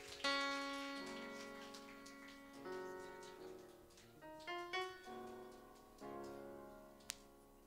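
Piano-sound keyboard playing slow, sustained chords, each struck and left to fade, changing about every one to one and a half seconds, with one sharp click near the end.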